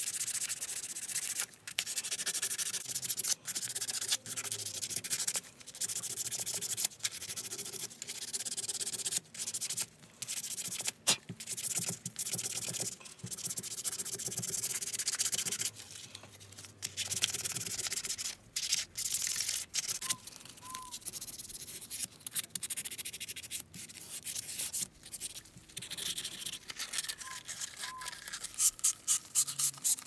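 Hand-sanding the brass cap and band of a model steam locomotive's painted smoke stack with a small abrasive pad: scratchy rubbing strokes with brief pauses between them. The strokes quicken to about three a second near the end.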